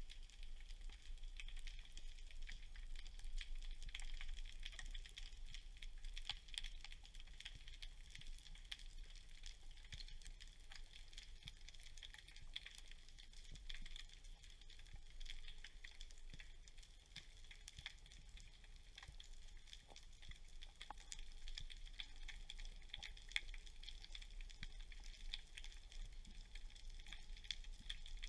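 Underwater ambience: a steady, dense crackle of tiny clicks over a low rumble.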